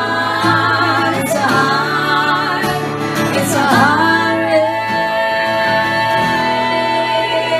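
Live folk-rock band with acoustic guitar, singing in long held, wavering notes through the drawn-out closing refrain of the song.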